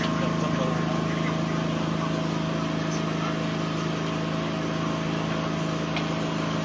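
Steady low mechanical drone with a few held higher tones over a faint hiss, unchanging in level.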